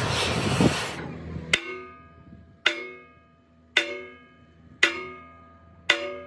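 A loud rushing noise that cuts off about a second in, then sharp metallic strikes about once a second, each ringing out and fading, like a hammer striking steel.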